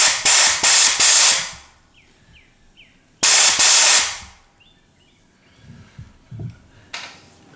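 Handheld spot sandblaster loaded with 80-grit black sand, blasting in short bursts of hissing air and grit: a pulsing spell at the start, then another about three seconds in. It is blasting a drilled plug-weld hole in sheet steel clean for welding.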